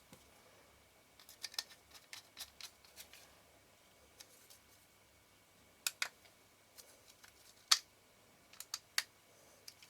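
Small, sharp clicks and taps of metal camera-lens parts and tools being handled during reassembly. They come irregularly, several in quick succession in the first few seconds, with the loudest single click about three quarters of the way through.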